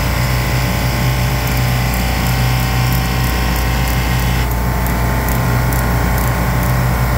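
Bitzer semi-hermetic reciprocating refrigeration compressor running steadily on the rack, a loud even hum and drone. A high hiss over it cuts off suddenly about four and a half seconds in.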